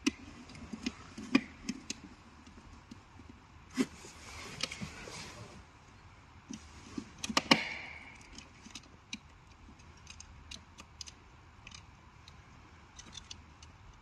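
Small metallic clicks, taps and scrapes of a screwdriver turning screws in a plastic foot-pedal switch, with rustle and knocks from the plastic switch being handled.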